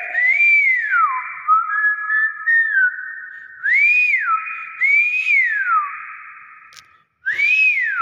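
Nias hill myna giving its natural whistled call: about five loud, clear whistles, most rising and then falling in an arch, with one held two-pitch note in the middle. Each whistle leaves a ringing echo behind it.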